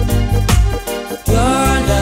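Reggae lovers rock music with a pulsing bass beat. About a second in, it dips briefly and cuts abruptly to a new passage with long held melodic lines.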